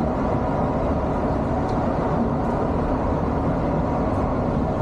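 Steady cabin noise of a Volvo B11R coach under way: the drone of its rear-mounted six-cylinder diesel mixed with road and tyre noise, heard from the front of the cabin.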